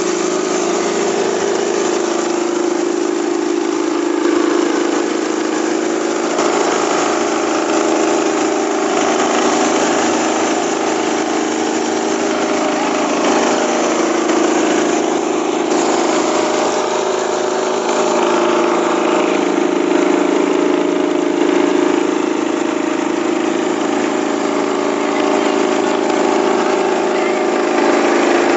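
Small rice husker machine running steadily, a constant mechanical hum.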